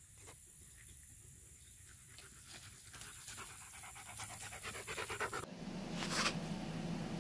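German Shepherd dog panting in quick, rhythmic breaths that grow louder as it comes up to the microphone. About five seconds in, this gives way abruptly to a steady low hum, with one brief rustle.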